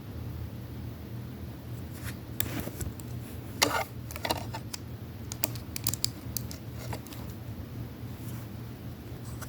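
Plastic Lego bricks clicking and rattling as pieces are handled and pressed together: scattered sharp clicks, the loudest a little under four seconds in, over a steady low hum.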